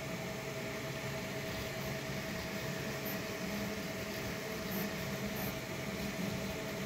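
A 3D printer running a print: its cooling fans whir steadily while the stepper motors hum, the lower tones shifting and coming and going as the print head moves.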